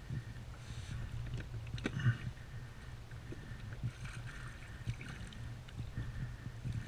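Small jack pike splashing and thrashing at the water's surface beside a kayak as it is drawn into a landing net, in irregular bursts over a steady low rumble.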